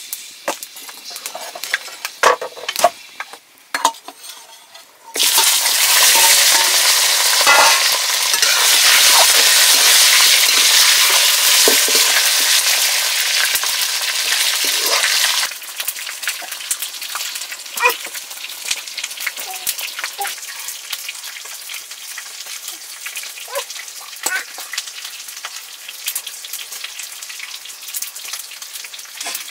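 Potatoes and meat tipped into hot oil in an iron wok over a wood fire: a loud sizzle starts suddenly about five seconds in and stays loud for about ten seconds, then settles into quieter steady frying with the clicks and scrapes of a spatula stirring. Before the food goes in there is only faint crackling.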